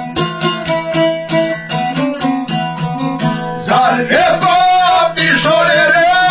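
Long-necked lute played with quick picked notes, then a man's singing voice comes in about four seconds in with long, wavering held notes over the strings.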